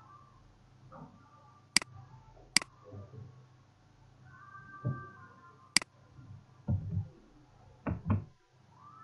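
Three sharp computer mouse clicks, the first two close together and the third a few seconds later. Several dull low knocks follow in the second half.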